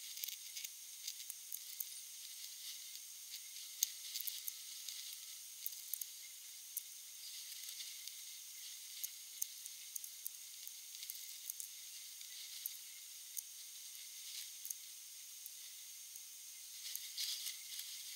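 Faint sticky crackling and small irregular clicks from gloved hands pressing epoxy-wet carbon fibre cloth into a mould, over a steady high hiss.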